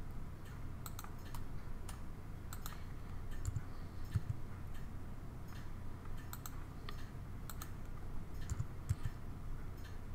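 Computer keyboard keys and mouse clicks, scattered irregular taps, over a low steady hum.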